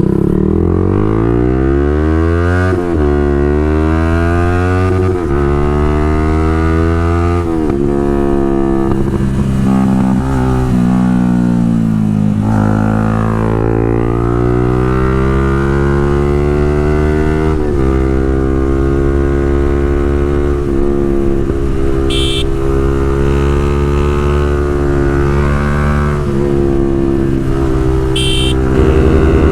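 Motorcycle with an aftermarket Pro Liner full-system exhaust accelerating up through the gears. The engine note climbs and drops back at each shift, about three times in the first eight seconds, then cruises with the pitch rising and falling as the throttle opens and eases.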